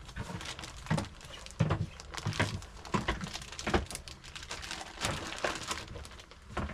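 Irregular close knocks, taps and scrapes, like hands handling things on a hard surface, a few a second with short pauses.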